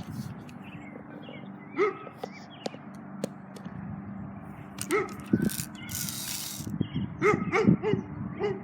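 A puppy barking in short yips: once about two seconds in, again about five seconds in, and several in a row near the end.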